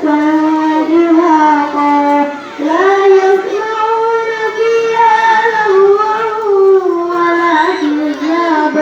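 A young girl reciting the Quran in the melodic tilawah style, holding long ornamented notes that waver and glide. There is a short pause for breath about two and a half seconds in.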